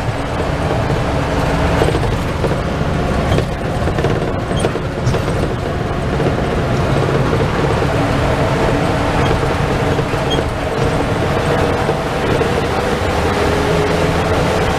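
Medium bus under way, heard from inside the cabin at the front: a steady engine drone over road noise, with a few knocks early on. The engine note shifts slightly in pitch near the end.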